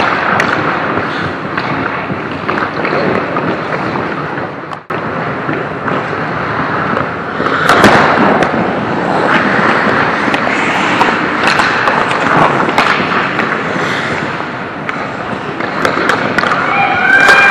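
Ice hockey play close to the goal net: skates scraping and carving on the ice, with a steady run of sharp clacks and thuds from sticks, puck and contact around the net. A short pitched tone sounds near the end.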